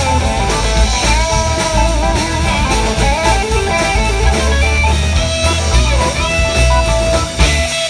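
Instrumental rock-blues band music: a guitar lead line that bends and wavers, then holds one long note through the second half, over bass and drums.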